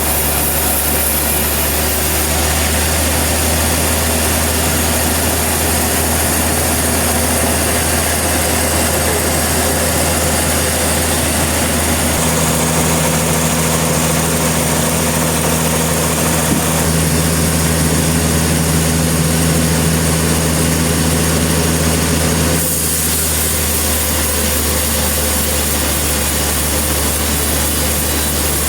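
Portable sawmill's engine running steadily, a constant mechanical hum. It shifts in tone about twelve seconds in and drops back slightly about twenty-two seconds in.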